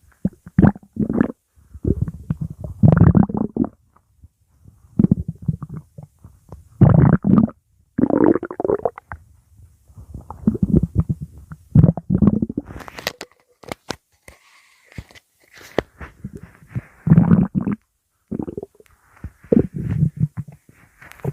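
Stomach growling: gurgling rumbles come in irregular bouts of a second or two with short pauses between them. A few sharp clicks come a little past halfway.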